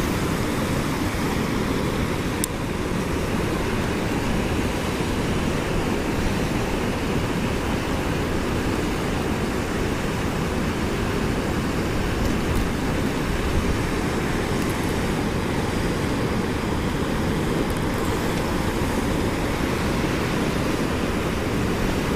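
Steady rush of whitewater pouring out of a stone dam outlet into a river pool, heard close by.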